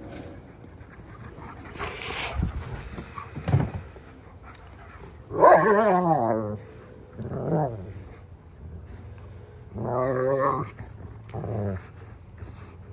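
Dogs growling and snarling as they scuffle: four loud, wavering growls from about five seconds in, the first the loudest.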